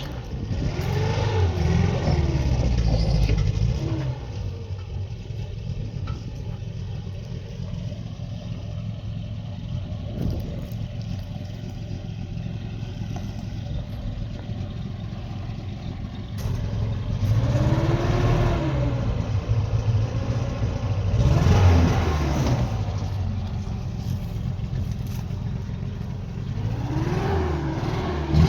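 A vehicle engine running, its pitch rising and falling several times as it revs up and eases off, with the strongest surges near the start, about two-thirds of the way through and near the end.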